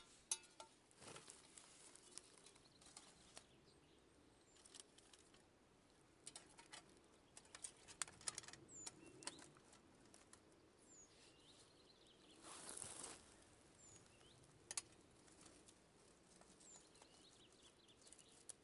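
Faint metal clicks and clinks as a small folding steel camp stove, a Firebox Nano, is handled and assembled on its tray, with a longer rustle about two-thirds of the way through. A bird gives a few short high chirps.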